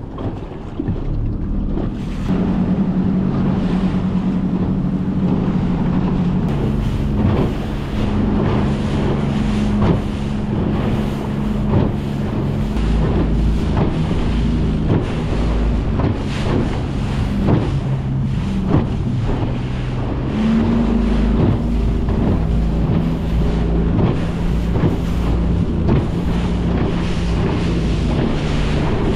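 Outboard engine of a Highfield Sport 390 RIB running under throttle, its pitch stepping up about two seconds in and again about two-thirds of the way through. Wind buffets the microphone and the hull slaps and splashes through the chop.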